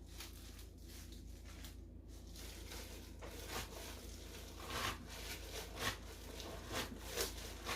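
Soybean sprouts being dropped by hand into a rice warmer pot, making faint rustling and a few soft handling noises in the second half.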